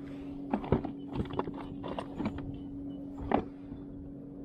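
Irregular knocks and taps, about a dozen in three seconds, the loudest about three seconds in, as a just-caught small flathead is handled over a plastic fishing kayak. A steady low hum runs beneath them.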